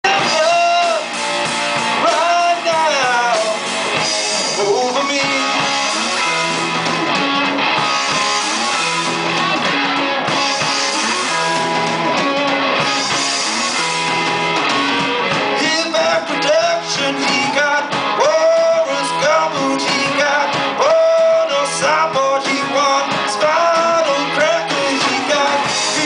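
Live rock band playing: electric guitars and a Gretsch drum kit, with a male voice singing at the microphone.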